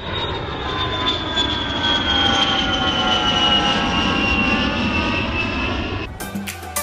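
Jet airliner engines running: a steady rush with several whining tones that slowly fall in pitch, dying away near the end.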